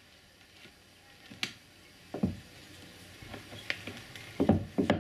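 Detachable tow bar ball neck being handled at its receiver socket: scattered metallic clicks and knocks, a dull thud about two seconds in, and a cluster of clunks near the end that is the loudest.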